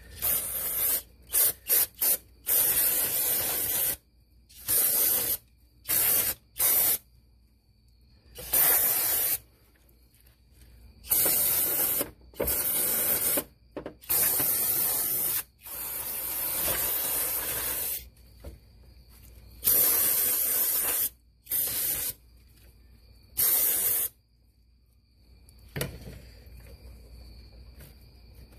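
Aerosol brake cleaner sprayed in repeated hissing bursts, some short and some held for a second or two, stopping about four seconds before the end.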